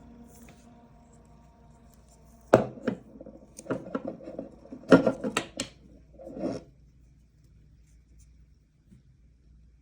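A small PC fan, a Noctua NF-A9x14, runs with a faint steady hum, then a run of loud knocks and clattering about two and a half seconds in lasts for about four seconds. After the clattering the hum is gone.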